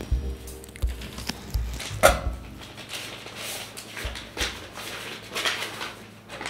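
Sobbing and sniffling from a crying girl, in short uneven bursts, with soft low thumps in the first couple of seconds.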